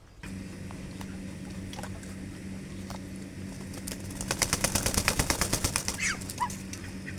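Ducks: a fast, even rattle of about a dozen sharp clicks a second for roughly two seconds midway, then two short falling calls near the end, over a steady low hum.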